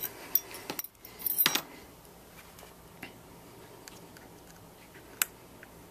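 Handling clicks and a precision pentalobe screwdriver working the bottom screws of an iPhone 5: a few clicks, a short scraping rustle about a second and a half in, then faint scattered ticks and one sharp click near the end.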